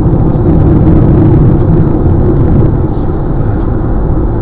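Steady road and tyre noise with engine hum inside a car's cabin cruising at highway speed.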